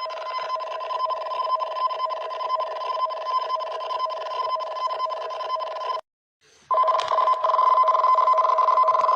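Tsunami warning alarm tone: two steady high pitches sounding together. It cuts off abruptly about six seconds in, and after a short silence starts again, louder.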